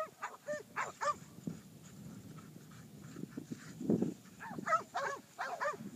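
Cur stock dogs barking at a herd of cattle, in quick runs of short barks during the first second and again from about four and a half seconds in. A brief low sound comes just before the second run.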